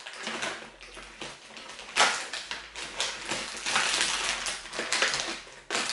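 Irregular crunching and crackling noises of eating and food handling close to the microphone, with a sharp burst about two seconds in.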